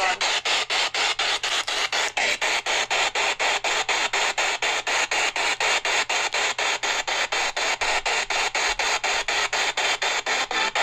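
Spirit box sweeping through radio frequencies: a hiss of static chopped into about five short bursts a second.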